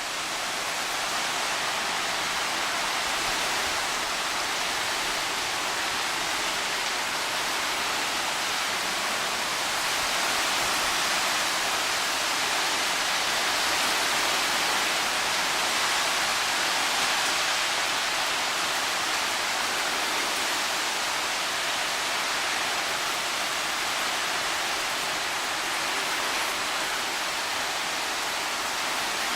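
Hurricane wind and heavy rain making a steady, even hiss, swelling slightly in the middle.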